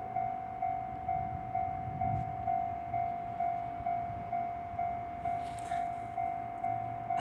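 Japanese railway level-crossing warning bell ringing, one steady pitched tone repeated evenly at about two strokes a second.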